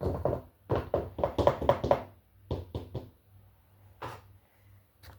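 A measuring cup knocking and tapping against a mixing bowl as flour is scooped and tipped in: a cluster of knocks at the start, a quick run of about six knocks around the middle, then a few scattered taps.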